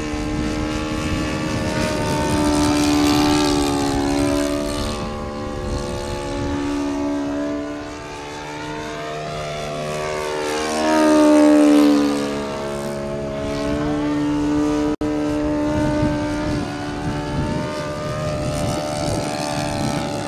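Model engine of a radio-controlled Sopwith Pup scale biplane in flight, its propeller note rising and falling in pitch as the plane passes back and forth, loudest on a close pass a little past the middle.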